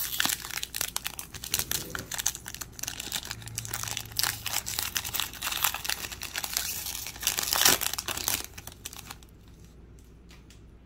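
Trading-card pack wrapper crinkling and tearing as it is ripped open by hand, with a loud crackle near the end; the crinkling stops about nine seconds in.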